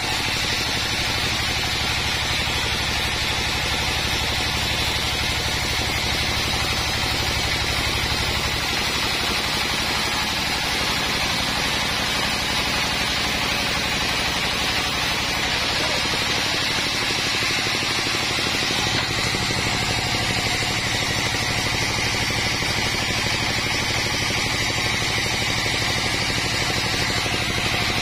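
Band sawmill sawing through teak logs: a steady, unbroken noise of the band blade cutting the wood over the low hum of the machine.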